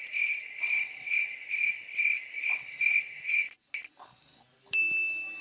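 Cricket chirping: a steady high chirp that pulses about twice a second and stops about three and a half seconds in. Near the end a separate steady high tone begins.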